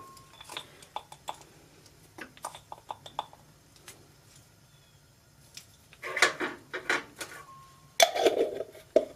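Kitchen handling sounds as celery seed is measured into a stainless steel stockpot: a run of small clicks and taps from a measuring spoon and spice container in the first few seconds, then louder clattering and handling about two-thirds of the way in and again near the end.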